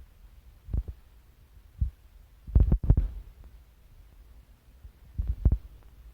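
Irregular low thumps and bumps, a cluster of the loudest about two and a half seconds in and another near the end, over a faint low rumble.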